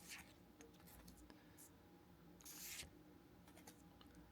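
Near silence with faint handling of Pokémon trading cards and their foil booster pack: a few light clicks and one short papery rustle about two and a half seconds in.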